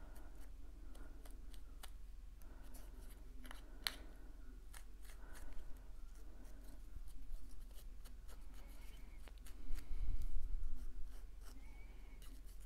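Light, irregular taps and scuffs of a foam ink blending tool dabbing black ink onto the edges of white cardstock letters, with soft paper handling rustle. Handling noise gets louder near the end.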